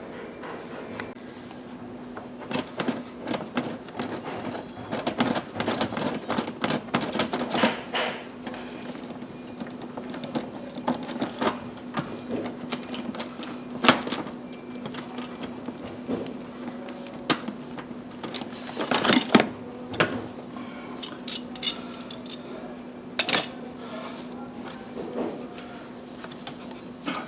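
Hand tools clicking and clattering in bursts during work on a car's interior trim and seat belt mounting, over a steady low hum.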